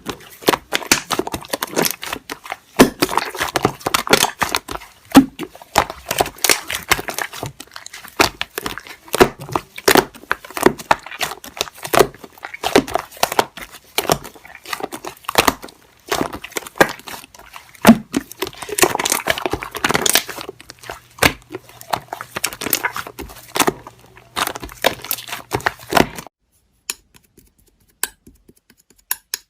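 Slime being squished and pressed by hand, with dense crackling and popping, that stops suddenly about 26 seconds in, leaving near silence with a few faint clicks. A faint low hum runs under the last several seconds of the play.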